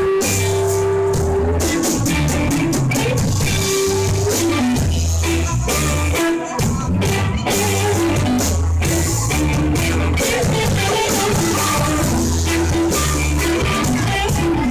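Live jam-band rock music from a full band: electric guitar over a steady bass line and drum kit, with keyboards on stage.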